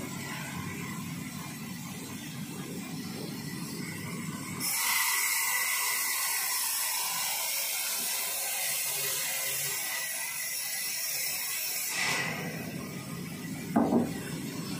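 Sawmill band saw running while a log is pushed through it on the carriage; for about seven seconds in the middle the sound turns to a louder, higher-pitched hiss as the blade cuts through the wood, then drops back to the lower running noise. A short knock comes near the end.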